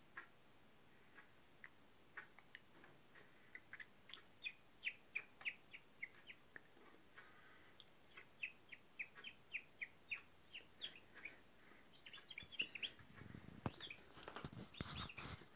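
Common chaffinch singing: two runs of short, quick chirping notes, with a few more just after. A rustling noise follows near the end.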